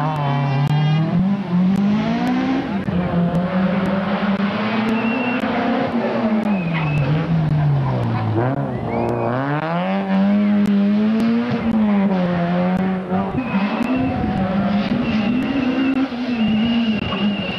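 Rally car engines revving hard as cars take a corner one after another, the engine note rising and falling over and over.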